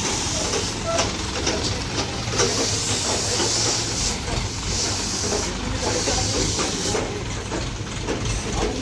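Heavy machinery running with a steady low engine rumble, under a high hiss that starts and stops every second or two.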